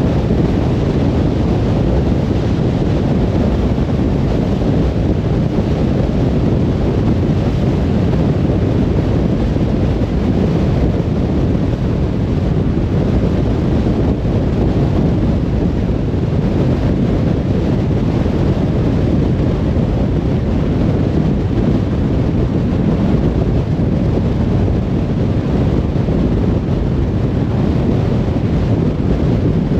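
Car driving at steady speed on a motorway: an even, low rumble of tyre and road noise that stays constant throughout.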